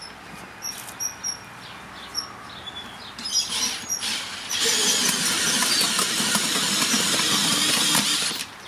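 Makita 40V cordless hammer drill driving a 300 mm earth auger into packed soil: the drill starts about halfway in, running loud and steady with the auger scraping through the dirt, and stops abruptly just before the end. Before that come a few light knocks as the auger is set into the hole.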